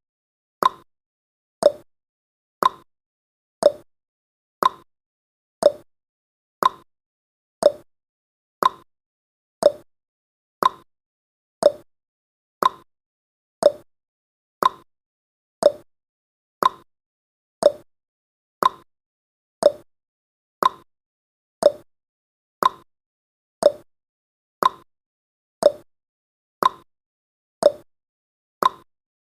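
Clock tick-tock sound effect marking the seconds of a countdown timer: one sharp click each second, alternating a higher tick with a lower tock, in an even rhythm.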